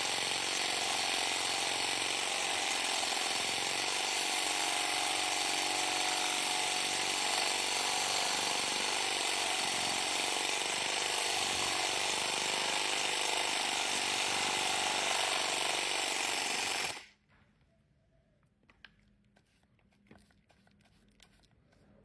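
Power tool with a tile-cutting blade grinding out the grout between ceramic tiles, running steadily, then cutting off suddenly about seventeen seconds in, leaving only a few faint clicks and knocks.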